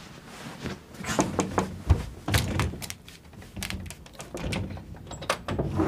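Sliding glass balcony door being handled and slid open: a series of clicks and knocks from the latch and frame, with a heavier thump about two seconds in.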